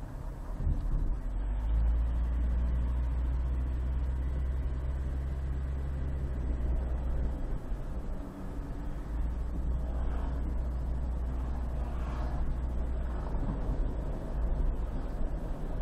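A car's engine and road noise while driving through city traffic: a steady low drone that eases off briefly about eight seconds in, then returns.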